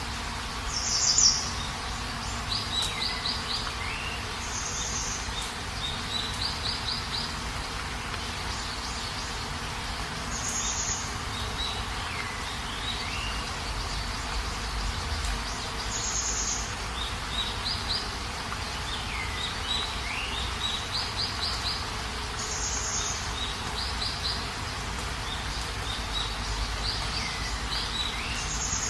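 Night chorus of insects and a bird: repeated short trains of rapid chirps, a higher buzzy call about every five or six seconds, loudest about a second in, and whistled calls that swoop down and back up.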